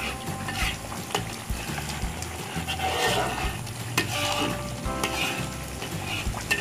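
Metal spatula stirring and scraping through rendang in a wok as the coconut-milk sauce sizzles, about an hour into cooking. Sharp knocks of metal on the wok come about one second and four seconds in.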